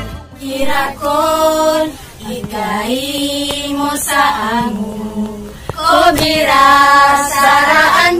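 A group of women singing together unaccompanied, in slow phrases with long held notes.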